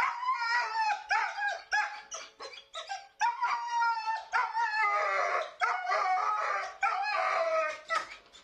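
Retired racing greyhound shut in a wire crate, whining and moaning in a near-unbroken string of long, wavering cries with short breaks, heard through a home security camera's microphone. The crying is a sign of her distress at being crated: she was very scared and anxious.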